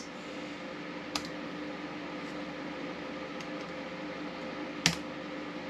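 A steady low hum with a few faint steady tones, like a fan or electronics running, broken by two light clicks: one about a second in and a sharper one near the end.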